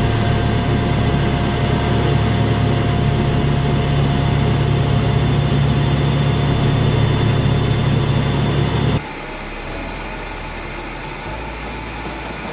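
Heavy vehicle engine of an Iskander missile launcher running steadily with a deep hum while the missile is raised upright. The hum cuts off suddenly about nine seconds in, leaving a quieter steady hum.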